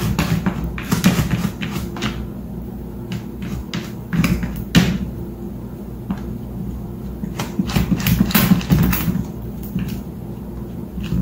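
A cat's paw batting and scraping at a clear plastic storage bin on a tile floor: clusters of quick plastic taps and clicks in several bouts, with short pauses between them.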